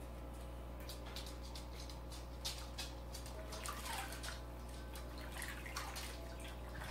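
A washcloth being rinsed and squeezed out by hand in a stainless steel bowl of water: soft splashing and dripping in short irregular spurts.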